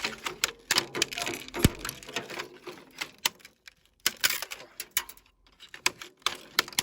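A small screwdriver prying open a washing machine's panel: a run of irregular sharp clicks and snaps, with one heavier knock a little under two seconds in.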